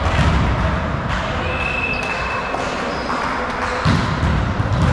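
Echoing sports-hall noise during a volleyball game: a volleyball thudding on the floor and against hands, with a sharp thud about four seconds in and players' voices in the background.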